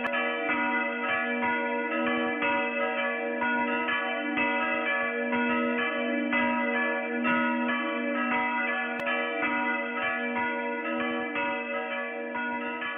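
Several church bells ringing together in a full peal, their strikes overlapping in a continuous, ringing wash. The peal begins to fade near the end.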